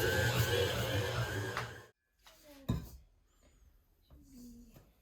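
Electric stand mixer running as it kneads bread dough, its motor hum wavering as the dough hook is loaded, then switched off abruptly about two seconds in. Faint handling sounds follow.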